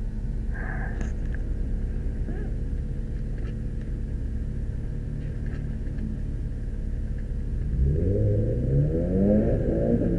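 Isuzu G200W twin-cam four-cylinder engine with Delco fuel injection, heard from inside the cabin, idling with a steady low rumble. About eight seconds in it is revved up, and the pitch climbs and dips a few times while the car stands still.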